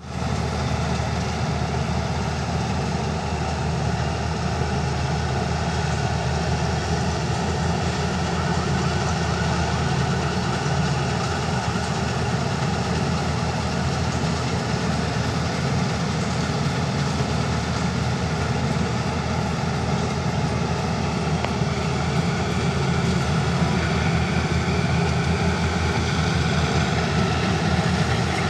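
Pal 977 combine harvester running steadily as it cuts a rice crop: a continuous engine and machinery drone, growing a little louder near the end as the machine comes closer.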